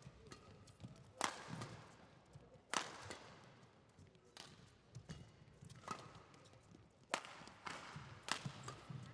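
Badminton rally: rackets striking the shuttlecock in about six sharp hits, roughly one to one and a half seconds apart, with the players' feet thudding on the court between shots.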